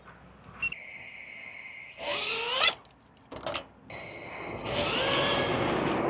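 Meteor65 Pro brushless tiny whoop drone's motors and propellers: a steady whine after arming, two short spin-ups with the pitch sliding, then from about five seconds in a loud, steady buzz as the drone flies.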